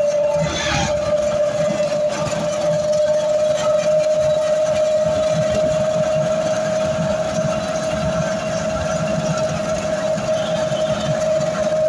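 Vehicle engine and road noise heard from inside a moving vehicle, with a steady whine held throughout over a low rumble.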